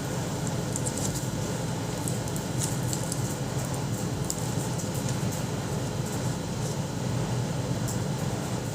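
Steady low background hum, like a fan or air conditioner, with faint soft ticks and rustles from handling foam clay and a plastic mold.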